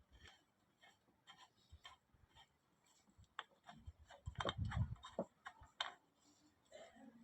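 Scattered light clicks and taps of bolts and O-ring washers being handled and fitted to an oil cooler. They come thickest from about three and a half to six seconds in, with a couple of dull knocks among them.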